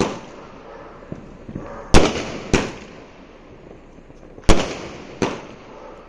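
A 240-shot aerial firework cake firing, its shells bursting overhead in sharp bangs. Four bangs come in two pairs, each pair about half a second apart, and each bang trails off in a short decaying rumble.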